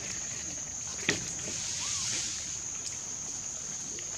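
Steady high-pitched insect drone, with a single sharp snap about a second in and a brief faint chirp-like call near two seconds.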